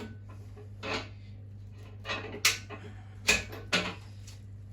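Metal tools and engine parts being handled on the bench: a handful of sharp metallic clinks and knocks, the loudest two about halfway through, over a steady low hum.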